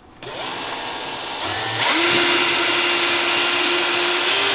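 Cordless drill with a 3 mm bit drilling a hole through the top panel of a 3D-printer enclosure. The motor starts about a quarter second in, speeds up about two seconds in, and then runs steadily at speed.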